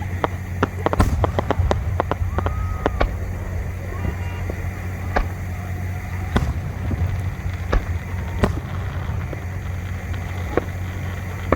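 Aerial fireworks going off: a quick run of sharp cracks in the first few seconds, then single bangs every second or two, over a steady low rumble.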